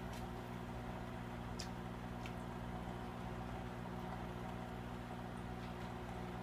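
Aquarium air pump and filter running with a steady hum, over the bubbling of an air stone and water trickling from the filter outlet, with a couple of faint ticks.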